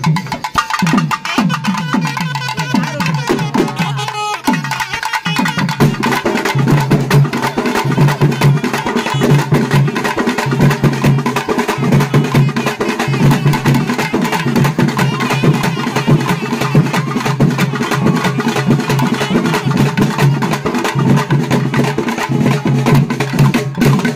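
Live Tamil folk music for a karakattam dance: a nadaswaram playing over fast, loud drumming on barrel drums and a frame drum. The drumming settles into a steady, even beat after about five seconds.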